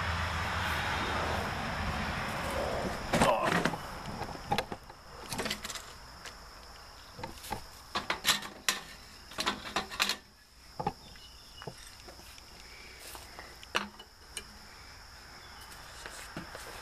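Scattered clicks and knocks of hand work on a wood-stove insert's door, with a steadier rustling noise at first and a tight cluster of knocks about three seconds in.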